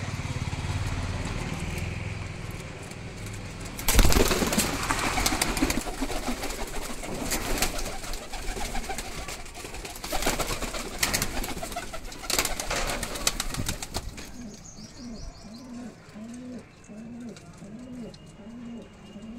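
Pigeons' wings flapping and clattering in loud, sharp bursts that start suddenly about four seconds in and go on for about ten seconds. Then a pigeon cooing, a steady run of short coos a little over one a second.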